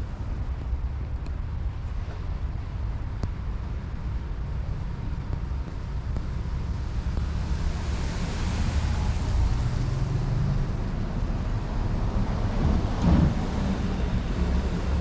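Wind buffeting the microphone in a snowstorm, a steady low rumble that swells and eases, with one stronger gust about 13 seconds in.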